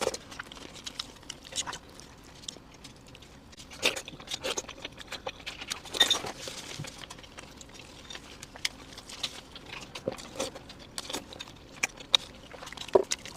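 Close-miked eating sounds: irregular crunches, clicks and wet smacks of biting and chewing food.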